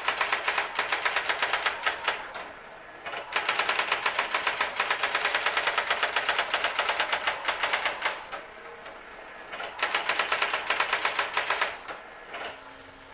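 Brother GX 6750 daisy-wheel electronic typewriter printing text in three runs of rapid, even strikes, each run a line of type, with short quieter pauses between the lines.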